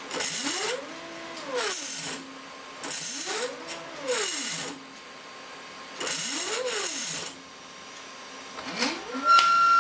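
Epson LQ2070 dot matrix printer's carriage stepper motor jogging the print-head carriage along its rail in four short moves. Each move is a whine that rises in pitch as the motor speeds up and falls as it slows, over a hiss. A thin steady whistle joins near the end.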